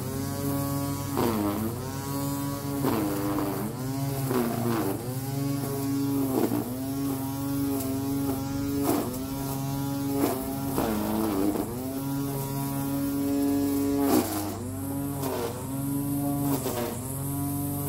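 Electric motor of a lawn tool running with many overtones. Its pitch sags and recovers about every one and a half seconds, as if loaded and then freed again.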